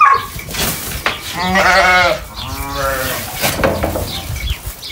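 Sheep bleating twice close by, one long call and then a shorter one, over rustling straw, with a sharp knock right at the start.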